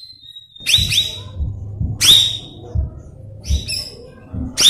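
Cucak rawis (cucak bayeman) leafbird song: loud, sharp whistled notes that drop steeply in pitch and then briefly hold, coming about once a second, sometimes doubled. Dull low thumps sound beneath the song.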